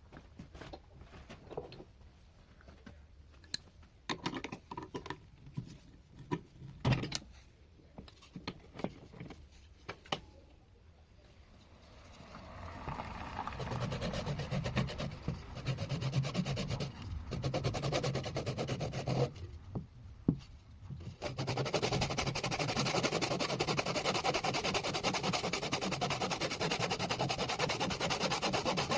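A few scattered light knocks and clicks, then a wood lathe running with something rubbing steadily against the spinning pine bowl, a rough scraping noise over a low hum. It stops briefly about two-thirds of the way in, then resumes louder.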